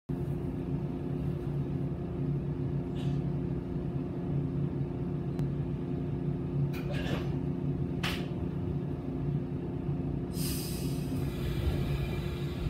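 Steady electrical hum of a stopped JR 115 series electric train at a platform, with a few short air hisses, then a louder burst of air hiss about ten seconds in as the air brakes release for departure.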